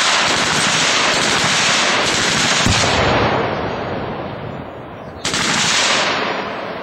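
A .30-calibre machine gun firing long, continuous bursts. The burst already under way breaks off about three seconds in and its echo fades. A second, shorter burst starts abruptly about five seconds in.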